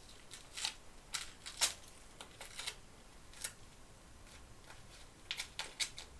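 Scattered quiet crackles and ticks, about a dozen short ones, of hands working sticky carpet tape and paper while repairing a book's spine.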